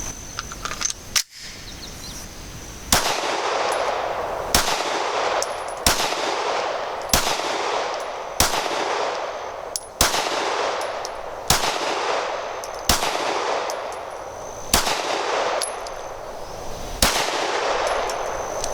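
Steyr Arms M9A1 pistol fired ten times in slow aimed fire, about one shot every one and a half seconds, each shot ringing out and fading. A few light clicks of handling come before the first shot.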